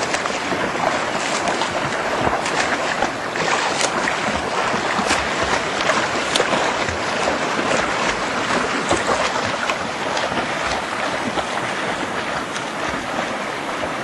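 Sea water splashing and sloshing close to the microphone, with the irregular splashes of swimmers' front-crawl strokes and some wind on the microphone.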